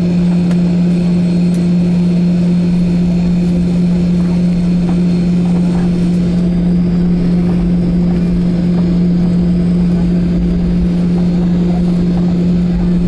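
Steady drone inside the cabin of a Boeing 737-900ER on the ground after landing: a strong low hum with a fainter higher tone over a haze of engine and air-system noise.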